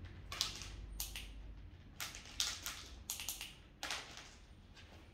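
A plastic pet carrier clicking and rattling as a hand handles its top: a run of about eight short, sharp, irregular clicks, bunched through the middle and trailing off before the end.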